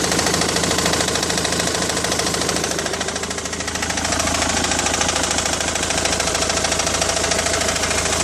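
Ford Mondeo engine running steadily, a fast even pulsing with a light clatter over it. About three and a half seconds in the sound dips slightly, and a steady mid-pitched tone then joins it.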